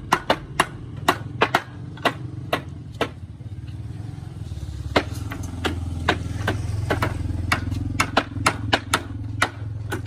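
Irregular hammer blows, sharp knocks about two a second, over a steady low engine hum that grows louder about four seconds in.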